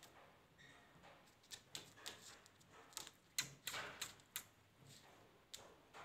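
Faint, irregular clicks and taps from a parakeet's beak and feet on a table top, with a few short scratchy sounds around the middle.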